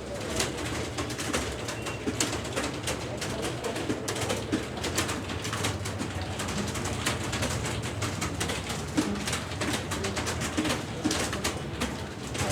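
Many computer keyboards being typed on at once: a dense, irregular clatter of key clicks over a low steady hum.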